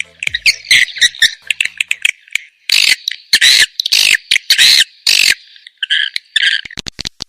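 Swiftlet lure recording: swiftlets twittering and giving harsh, raspy chirps, with a run of loud drawn-out calls in the middle and a quick series of clicks near the end. This is the call sound played to draw swiftlets into a swiftlet house to roost and nest.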